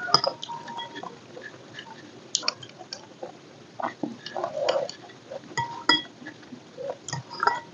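A person eating close to the microphone: chewing, with scattered mouth clicks and smacks.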